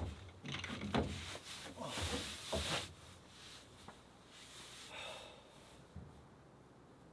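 A few knocks and rustling handling noises over the first three seconds, then it goes quiet.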